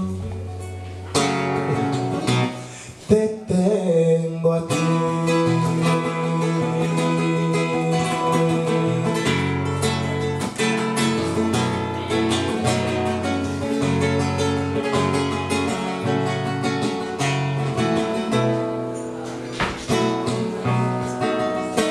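Acoustic guitar played live, an instrumental strummed and picked passage between sung verses of a song. It drops off briefly about two to three seconds in, then comes back in full.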